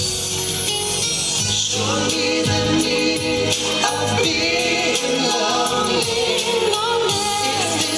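Dance song played as a recording, with a steady beat; a singing voice comes in about two seconds in and carries the melody.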